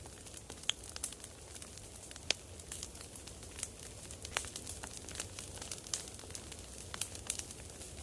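Campfire burning: irregular sharp crackles and pops over a steady low hiss of the flames.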